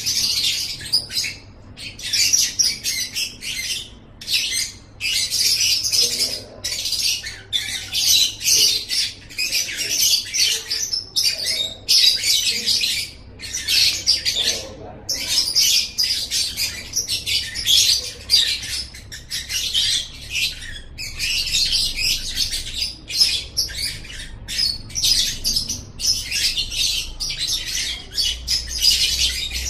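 Lovebird singing its 'ngekek': a long, rapid, high-pitched chattering song delivered in continuous runs, broken by short pauses every second or two.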